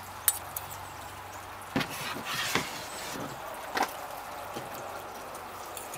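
A chef's knife slicing grilled pork loin thin on a bamboo cutting board, the blade knocking against the wood several times.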